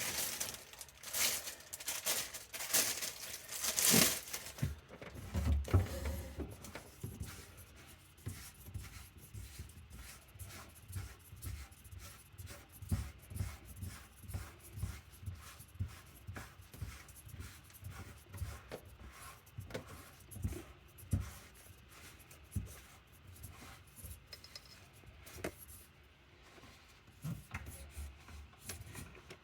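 Plastic push-button sink drain being tightened into place by hand. There is loud scraping and rustling for the first few seconds, then a long run of faint, irregular clicks and rubs of plastic parts, with a few low thumps about six seconds in.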